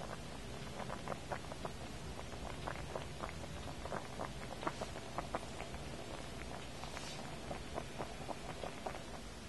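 Pot of broth with cabbage, carrots and potatoes simmering on the stove: many small irregular bubbling pops over a steady low hiss.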